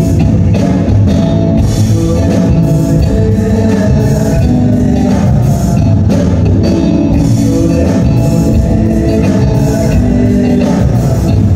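Live band music amplified through a stage PA: a male singer over a steady drum beat and electric guitar.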